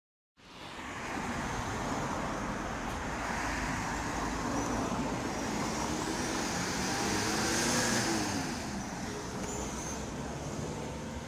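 Mercedes Sprinter ambulance driving past, engine and tyre noise rising to its loudest about eight seconds in and then easing off. A low rumble of wind and handling noise on the hand-held microphone runs underneath.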